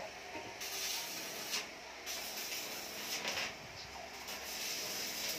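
Electric arc welding on a steel exhaust pipe joint: the welding arc crackles and hisses in a short run of about a second, stops briefly, then runs again from about two seconds in.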